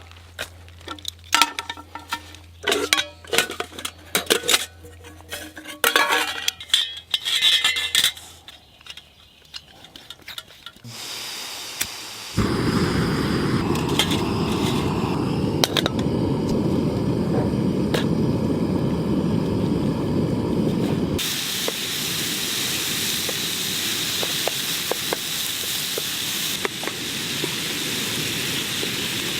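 Pots and parts of a Trangia 25 cook kit clinking and clattering as the kit is handled. About twelve seconds in a loud steady hiss starts, and about nine seconds later it gives way abruptly to a higher, thinner hiss with a few light clicks.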